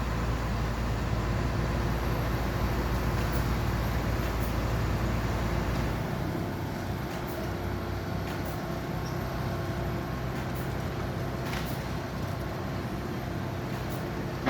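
Heavy construction machine's engine running steadily under demolition work, easing off a little about six seconds in, with a few faint knocks.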